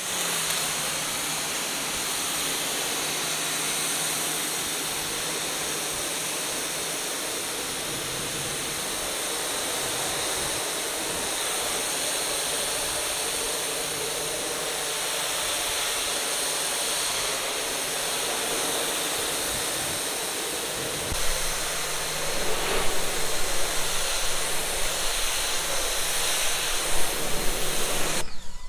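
Sun Joe electric pressure washer spraying a jet of water through a 25-degree nozzle onto vinyl siding: a steady, loud hiss of spray with a steady low hum underneath. It starts suddenly, and about twenty seconds in it gets louder and more uneven, with a low rumble added.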